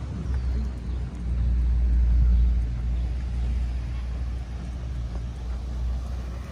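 A car driving past with a low rumble that swells about a second and a half in, then eases off.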